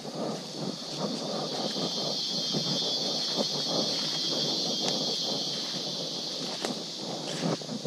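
Footsteps crunching and rustling through dry leaf litter on a forest trail, with scattered sharp snaps. Behind them a high, steady drone swells through the middle and fades near the end.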